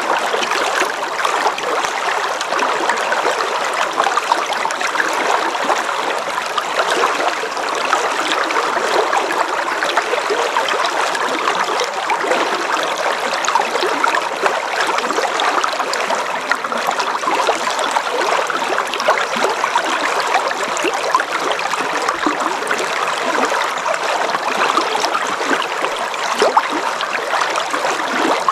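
River water flowing: a steady rushing babble that keeps an even level throughout, with no deep rumble underneath.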